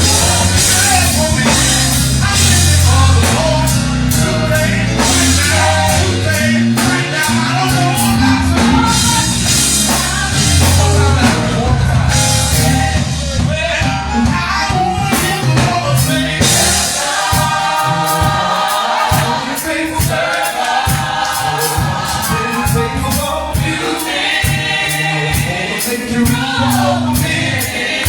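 Live gospel choir singing with a full band: bass, drums and keyboard.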